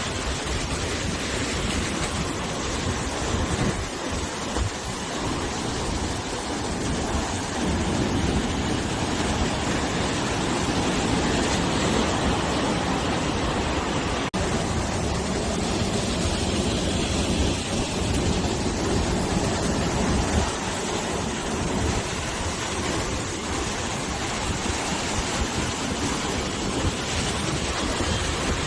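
Sea waves washing onto the shore, a continuous rushing surf that swells and eases in slow surges, with wind blowing over it. A momentary dropout about halfway through.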